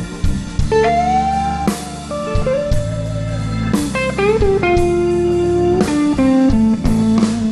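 Live blues band playing an instrumental passage: an electric lead guitar plays a fill of held notes with bends over bass and drums.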